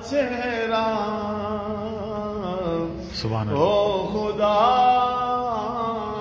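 A man reciting a naat in a slow, melismatic chant without words being spoken, holding long wavering notes, with a short break for breath about halfway through.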